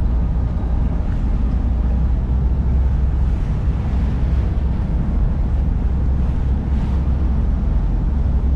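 Wind buffeting the microphone outdoors, a loud steady low rumble that rises and falls slightly.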